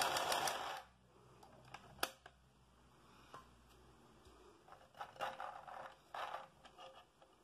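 Small portable mini sewing machine stitching with a fast clatter, stopping about a second in. Quiet fabric handling follows: a sharp click about two seconds in, then rustling and scraping as the fabric strap is turned under the needle.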